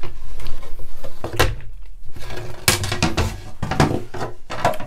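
Handling noise: a handful of sharp knocks and rustles, irregularly spaced, as a kitchen paper roll is reached for and picked up, with low rumbling from clothing brushing the clip-on microphone.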